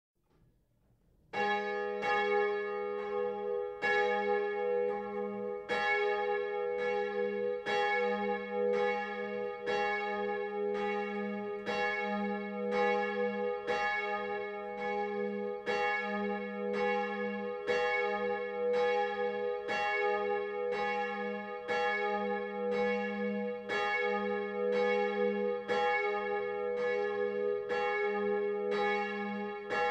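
A single swinging church bell, the 350 kg bronze signal bell cast in 1950 with strike note B (h'), starts ringing about a second in. Its clapper strikes at an even pace, roughly once a second, over a steady ringing hum.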